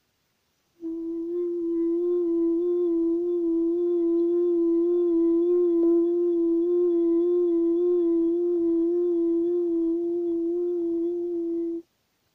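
A woman humming one long, steady note with closed lips for about eleven seconds, with a slight waver in pitch. It is a breath-support exercise for singing, held very softly with a relaxed jaw and driven by air from the diaphragm.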